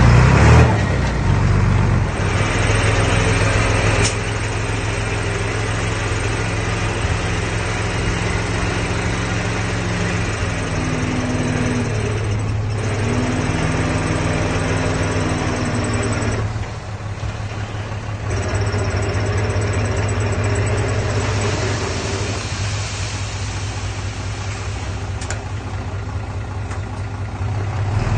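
Diesel engine of earthmoving machinery running steadily, its pitch rising a couple of times near the middle, with a brief drop in loudness shortly after.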